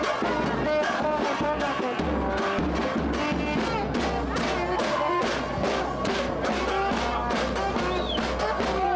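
Street band of trombone, saxophone, snare drums, bass drum and cymbals playing festive music with a steady drum beat; the bass drum comes in about two seconds in.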